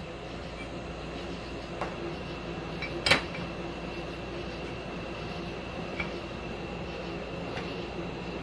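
A few sharp metal clinks as a steel pitman arm puller is fitted onto a UTV wheel hub to press in new wheel studs, the loudest about three seconds in. A steady hum runs underneath.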